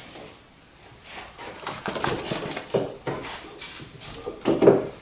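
Handling noises from a starter solenoid being pressed into place on a car's fender: scattered clicks, rustles and light knocks, with a louder clunk near the end.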